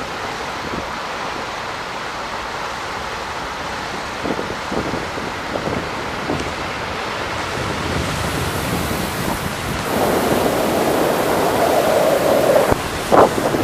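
Steady rushing noise of moving water with wind buffeting the microphone. It gets louder in the second half, with a few short knocks.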